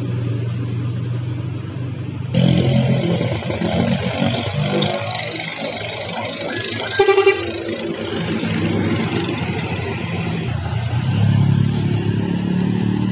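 Truck engines running as laden sugarcane trucks pass on a hill road, with a short horn blast about seven seconds in. Motorcycle engines come up near the end.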